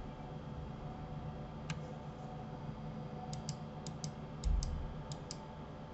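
Computer mouse clicking, about nine short clicks, mostly in quick pairs in the second half, over a steady low hum. A dull low thump about three quarters of the way through is the loudest sound.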